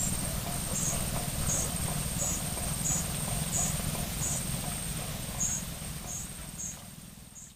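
Short high chirps from a small animal, repeating about every 0.7 s, roughly a dozen in all, over a steady high-pitched whine and a low wind rumble; everything fades out near the end.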